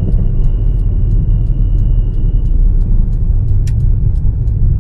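Proton Gen2 cabin noise on the move: steady low engine and road rumble, with a thin, high, steady whistle that cuts off about halfway through. This is the car's whistling noise, whose source the owner has not found.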